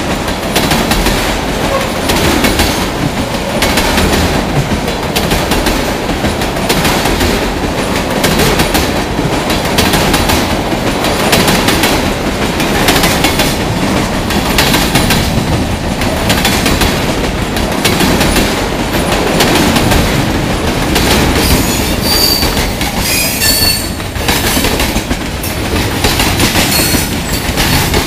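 Freight train of covered hopper cars passing close by at speed: a steady loud rumble of wheels on rail with repeated clickety-clack over the rail joints. Brief high-pitched wheel squeals cut in about twenty-two to twenty-four seconds in.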